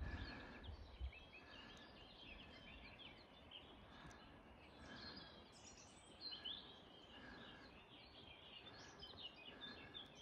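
Faint songbirds chirping and trilling, with one short call repeated about once a second. A low rumble fades out in the first second.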